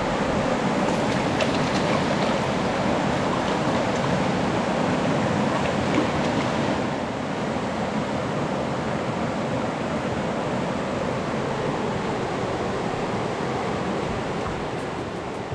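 Steady rush of a fast-flowing river in flood, an even wash of water noise; the higher hiss eases a little about seven seconds in.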